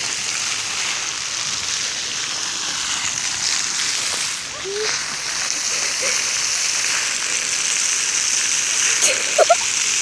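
Water jets of a ground-level fountain spraying up and splashing back down onto the wet basin, a steady hiss of falling water.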